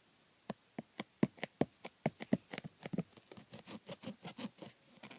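Dried hot glue being peeled off skin, giving a rapid, irregular run of sharp sticky clicks and crackles. They start about half a second in, crowd together and get denser through the middle, and stop near the end.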